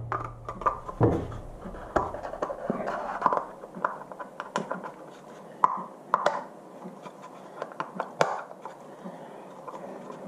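A paper cartridge oil filter and its plastic housing cap handled and pressed together. Rubbing and scattered sharp clicks as the filter is clipped onto the cap, the loudest click about eight seconds in.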